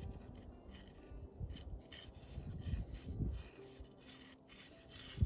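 Dirt and small stones scraping and rubbing in irregular strokes as soil is sifted through while hunting for a tiny gold target picked up by a metal detector.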